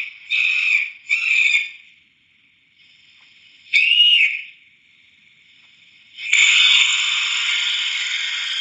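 Cartoon scream sound effects, high-pitched and thin: two short yelps, a brief rising-and-falling cry about four seconds in, then one long held scream starting about six seconds in.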